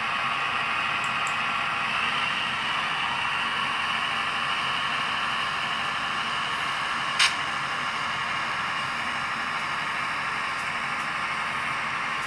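Sound decoder in an NRE Genset locomotive model playing the diesel genset engine sound through its small speaker at a low throttle notch, a steady hissy drone, while the model runs slowly in reverse. One sharp click about seven seconds in.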